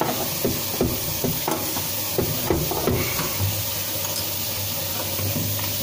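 Tap water running down the drain through a newly fitted plastic sink trap, a steady hiss, during a flow test for leaks. Scattered light clicks and knocks are heard over it.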